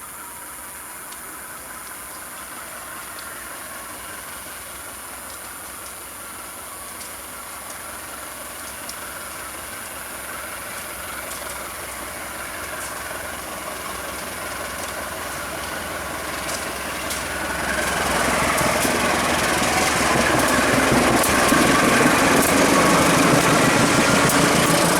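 Diesel-electric locomotive engine running and growing steadily louder as the train draws near, with a sharp rise in level about 18 seconds in.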